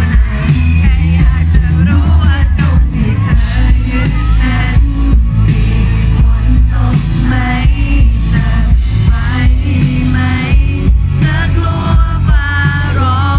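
Live rock band playing loudly through a PA, electric guitar and bass under a sung lead vocal.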